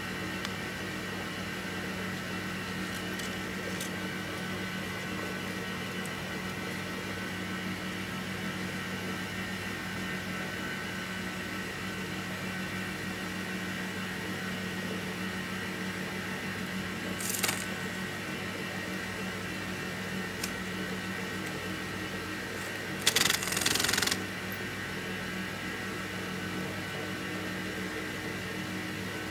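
Small metal lathe running steadily with a motor hum while a hand-held tool is worked against a thin rod in its chuck, cutting a new worm shaft. Two short scraping bursts stand out: a brief one a little past the middle and a louder one, about a second long, later on.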